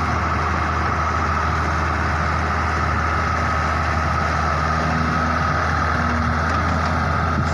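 Heavy diesel machinery running steadily, with a constant high whine over the low engine note: a wheeled excavator working its hydraulics as it swings and lifts a loaded bucket, next to a dump truck.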